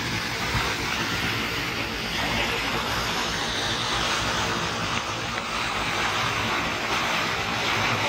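Waterfall pouring down a rock face into a pool close by: a steady rushing of falling water and spray.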